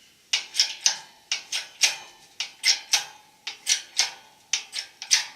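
Shop press being worked to push the countershaft out of a Borg-Warner T-10 four-speed transmission case: sharp metallic clicks in quick groups of three, about once a second.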